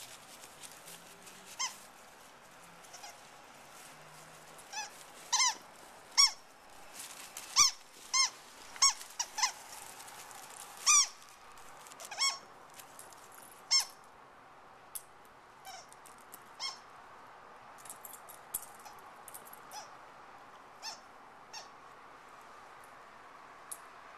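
Squeaky dog toy being chewed by a dachshund: short, high squeaks at irregular intervals, loudest and most frequent in the middle, then fainter and sparser toward the end.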